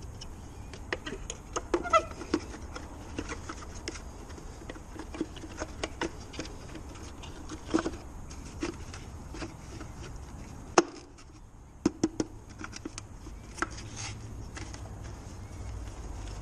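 Clicks, taps and knocks of hard plastic from a Ford Ka rear tail-light housing and its bulb holder being handled and pressed together, with a short squeak about two seconds in.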